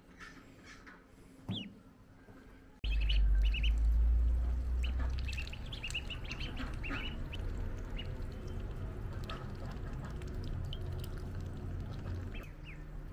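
Ducklings peeping in short high cheeps: one about a second and a half in, then a dense run from about three seconds in that thins out later. A steady low rumble starts suddenly about three seconds in and runs underneath, loudest for its first few seconds.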